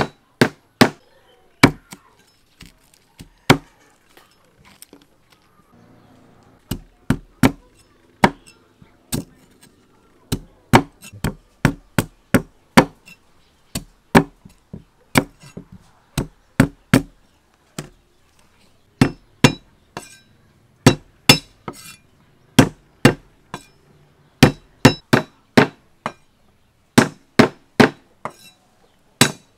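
Steel cleaver chopping lemongrass stalks and pieces of a ginger-like root on a thick wooden chopping board: sharp single knocks of the blade on the wood, about one or two a second, with a few short pauses.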